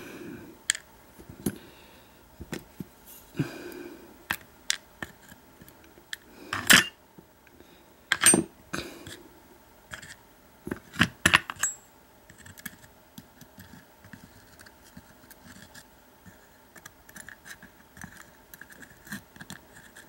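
Small brass lock parts clicking and clinking as an American padlock's core is taken apart: the plug and pin tumblers are handled and set down on a tray. The clicks come irregularly, a few sharper clinks in the first half and fainter ticks after.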